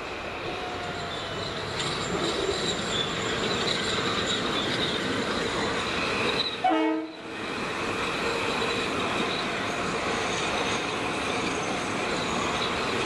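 Metro-North electric commuter train running past along the platform: a steady, growing rush of wheels on rail with high wheel squeal. About seven seconds in there is a brief loud tone, then a momentary sharp dip in the sound.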